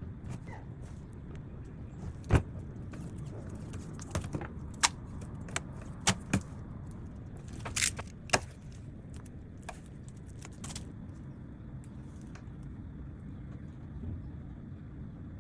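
Scattered sharp clicks and knocks of tools and wood being handled, loudest about two seconds in and clustered over the next six seconds, over a steady low hum.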